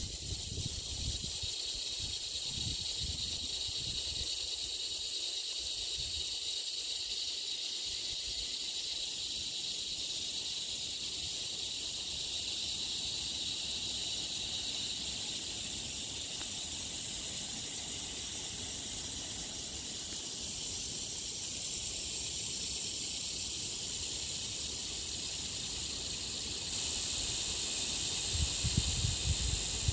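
Steady, high-pitched insect chorus that runs without a break. Low rumbling on the microphone comes in near the end.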